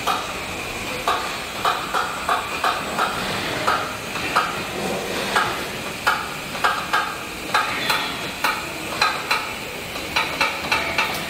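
Car-factory body-shop machinery: irregular sharp clacks and clicks, roughly one or two a second, over a steady hiss and a faint high hum.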